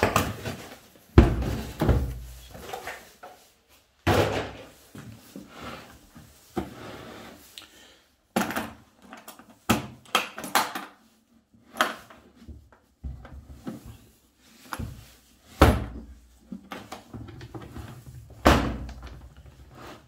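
Unboxing handling of a hard plastic tool case on a wooden workbench: cardboard packaging rustling as it is pulled off, a series of knocks and thuds as the case is moved and set down, and the latches clicked open before the lid is swung open.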